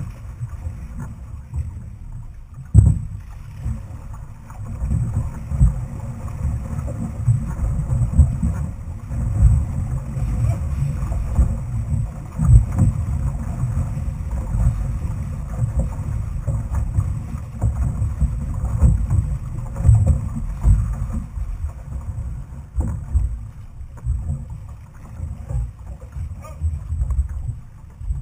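Outrigger canoe being paddled: a low, uneven rumble of water along the hull and wind buffeting the hull-mounted camera, with a few sharp knocks.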